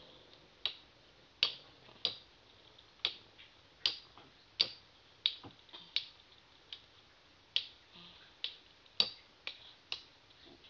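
Two metal Beyblade spinning tops clashing in a plastic stadium: sharp, short clicks at uneven intervals, about one to two a second.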